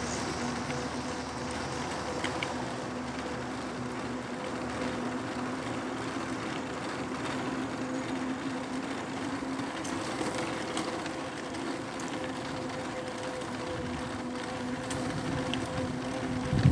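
Aostirmotor S17 e-bike under way: a steady electric-motor hum with tyre and wind noise from riding. A thump right at the end.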